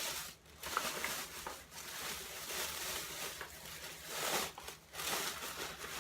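Rustling and crinkling as a new pencil case and packets of pencils are handled, in a string of short bursts.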